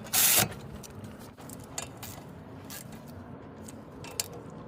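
A power tool runs in a short, loud burst near the start as a front brake caliper bolt is driven in. After it comes quieter handling of tools and parts, with a few light clicks.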